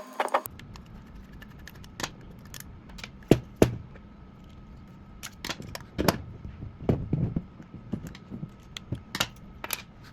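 Irregular small metallic clicks and taps from a Honda car lock cylinder being taken apart by hand, with two louder knocks about three and a half seconds in.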